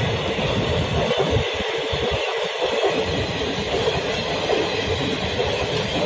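Passenger train coaches passing at speed: a steady rushing rumble of wheels running on the rails.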